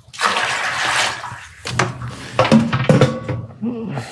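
Water splashing and rushing for about a second and a half, then a low pitched murmur with a few light knocks.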